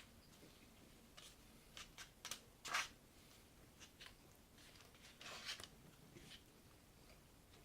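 A person eating close to the microphone: quiet chewing with short, crunchy bites and mouth smacks scattered through, the loudest a little under three seconds in.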